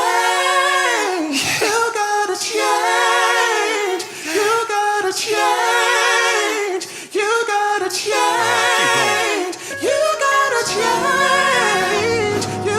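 A singing voice holding long notes with wide vibrato, with little or no backing; a low bass part comes back in near the end.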